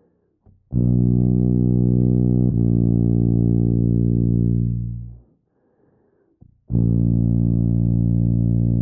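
Tuba playing long tones: a sustained low note that slurs to a second note about two and a half seconds in, held and then fading away around five seconds in. After a short pause, another low note starts and is held steadily.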